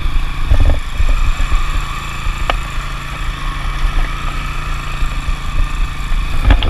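A small engine running steadily, with a few low thumps.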